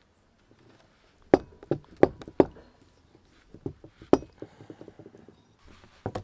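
Sharp metal clinks and knocks from an old hand drill being worked by hand, its crank refusing to turn, with a run of lighter rapid ticks in the middle. The gears are seized by dried-out old lubricant.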